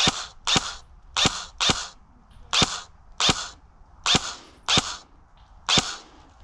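M4-style airsoft rifle fired in single shots: nine sharp shots, irregularly spaced about half a second to a second apart.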